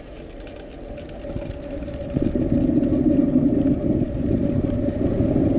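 Bicycle tyres rolling down a slope on a coarse-surfaced bridge deck: a rumble that swells about two seconds in as speed builds, with a steady hum underneath.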